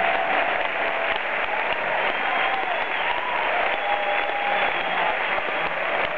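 Theatre audience applauding steadily, with a few cheers rising above the clapping.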